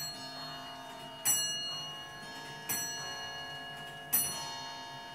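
A clock striking the hour: a bell-like tone struck about every second and a half, each strike ringing out and fading before the next, with clocks ticking underneath.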